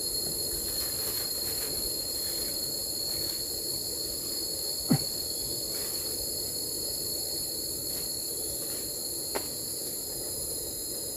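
Steady, high-pitched insect chorus with a steady low rumble beneath it; a sharp knock sounds about five seconds in and a fainter one a few seconds later.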